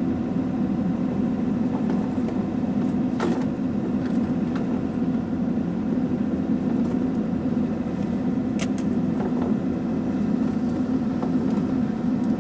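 Excavator engine idling steadily, heard from inside the operator's cab, with a couple of sharp clicks about three seconds in and again near the nine-second mark.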